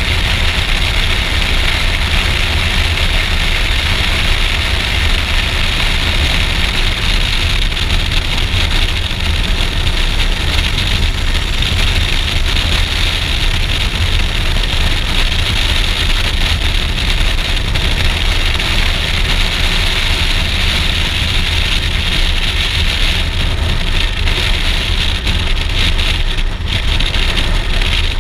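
Steady wind and road noise rushing over a helmet-mounted microphone on a moving motorcycle, with the Suzuki V-Strom 650's V-twin engine running underneath. The high hiss thins somewhat in the last few seconds.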